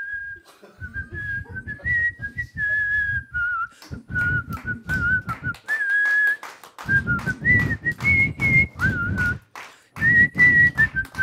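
A woman whistling a tune into a close microphone, the notes stepping and sliding up and down, with a short break just before the end.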